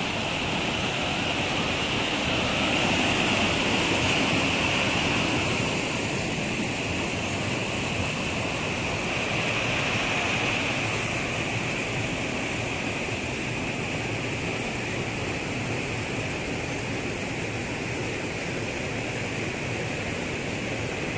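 Stream water rushing and splashing over boulders in small rapids: a steady rush of white water, a little louder a few seconds in and easing slightly toward the end.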